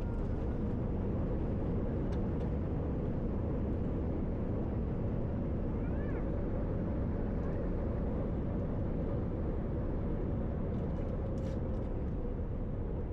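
Steady low rumble of vehicle cabin noise, with a faint steady hum and a few faint, brief higher chirps.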